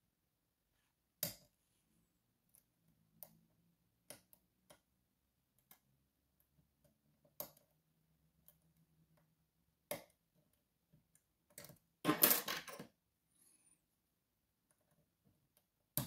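Light metallic clicks and scrapes of a pick and tension wrench working the sliders of an Evva 3KS lock, a few isolated clicks spread out, with a longer rattle of metal on metal about twelve seconds in and a sharp click near the end.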